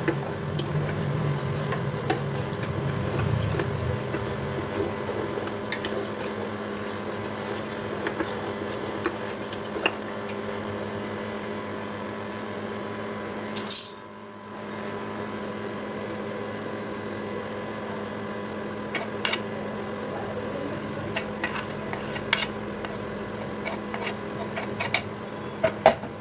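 Metal utensils clinking and tapping against a pot or pan in short, scattered clicks, over a steady low hum.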